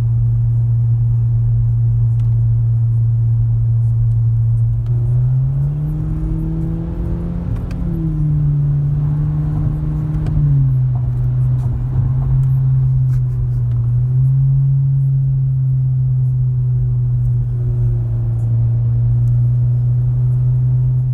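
Low, steady exhaust drone from a 2018 Honda Civic Hatchback Sport's turbocharged four-cylinder through a Magnaflow cat-back exhaust, heard from inside the cabin while driving. The pitch rises a little about five seconds in, holds for about five seconds, then settles back.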